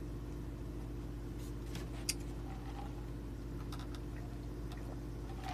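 Steady low hum of a quiet room with the air conditioner running, with a few faint clicks and taps, the sharpest about two seconds in.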